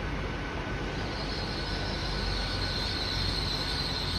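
A train running: a steady rumble with a thin high whine, and a higher-pitched whine that comes in about a second in.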